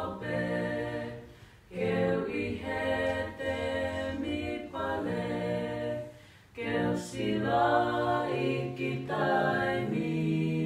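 A small group of voices, men's and women's, singing a cappella in harmony. The song comes in phrases broken by short pauses for breath about 1.5 s and 6 s in.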